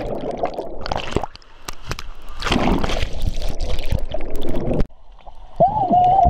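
Wave-pool water churning and sloshing around an action camera as it dips in and out of the water, with muffled gurgling while it is under. It goes briefly quiet twice, and near the end a single high tone rises in and holds.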